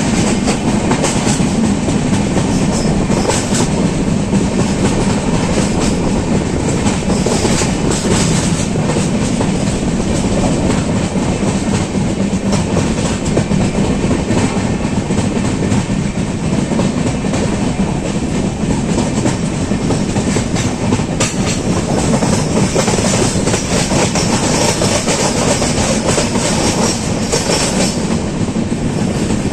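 Passenger train with LHB coaches running at speed: a steady rumble of steel wheels on the rails, with clickety-clack from the rail joints and scattered sharp clicks.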